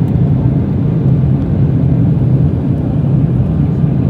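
Steady low rumble of an Embraer 175's two GE CF34-8E turbofans and the airflow, heard inside the cabin from a window seat as the jet climbs after takeoff.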